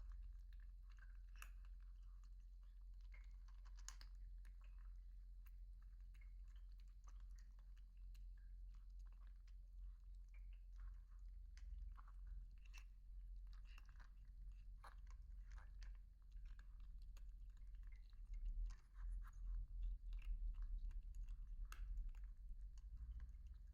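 Young animals chewing and crunching food: irregular small crisp clicks over a low rumble, which grows louder in the last few seconds.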